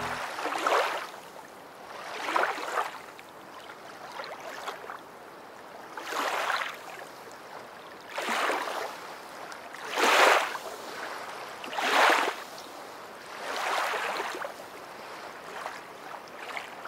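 Water washing in even surges about every two seconds, each swell rising and falling away, with no music or voices.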